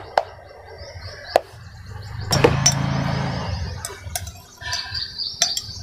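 A metal spoon clinking a few separate times against a steel bowl and a glass spice jar as spice powder is scooped and tapped off. A low hum swells briefly in the background midway.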